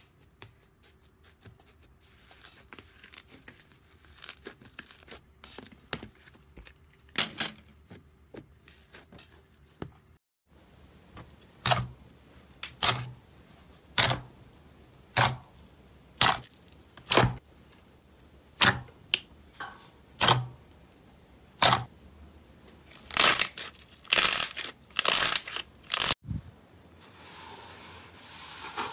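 Fingers poking into foamy slime in a plastic tub, each poke a short crackling, tearing pop. Soft and scattered at first, then sharp pokes about one a second, quicker near the end, followed by a softer steady crackle as a hand presses into slime.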